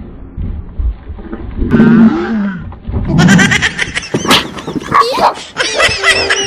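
Animal growls and a low roar in the first half. From about four seconds in comes a fast run of clicks and warbling tones like comic sound effects.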